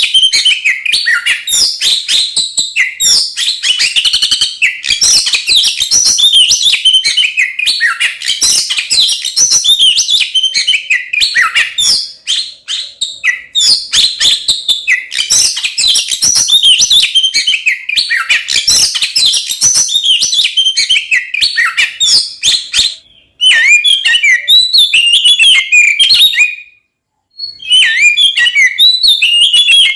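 Oriental magpie-robin (kacer) singing loudly without pause: a fast, varied stream of whistles and chirps in the agitated, fighting-mood "ngeplong" style. The song breaks off briefly a couple of times near the end.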